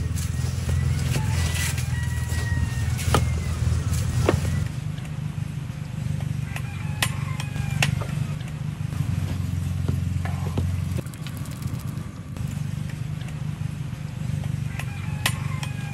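A steady low engine drone, weaker after about eleven seconds, with scattered light clicks and a few short high chirps.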